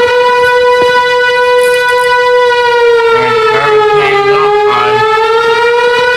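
A loud, long siren-like wail held on one pitch that sags slightly and rises again, then cuts off suddenly at the end.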